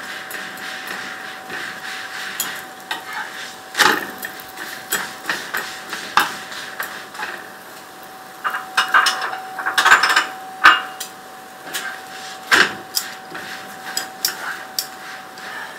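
Paratha frying in ghee on a flat tawa, with a steady sizzle under a faint steady tone. Repeated sharp clicks and scrapes of metal tongs on the griddle as the paratha is turned and pressed, the loudest about four seconds in and again around ten and twelve seconds in.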